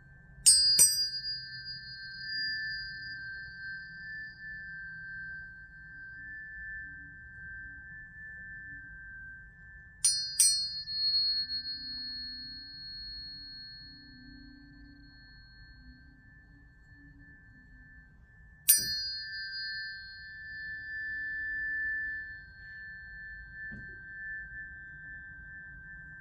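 Tuning forks struck three times, about ten and eight seconds apart. Each strike is a sharp click followed by a high ringing tone that fades over several seconds, over a steady, lower sustained tone.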